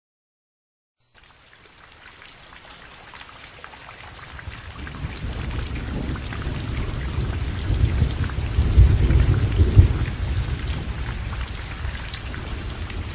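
Heavy rain, fading in after about a second of silence and growing louder, with a deep rolling thunder rumble that peaks about two-thirds of the way through.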